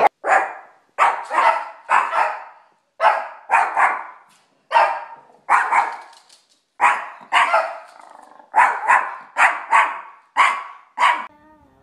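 Small dog, a Yorkshire terrier, barking over and over in short runs of two or three barks with brief gaps between.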